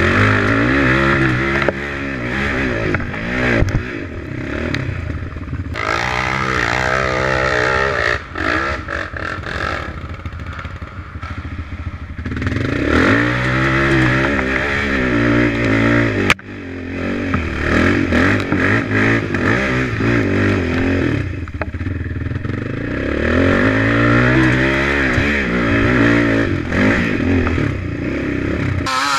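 ATV engine revving hard and easing off in repeated surges while climbing steep dirt slopes, with knocks and rattles from the rough ground. The sound breaks off abruptly about sixteen seconds in, then picks up again.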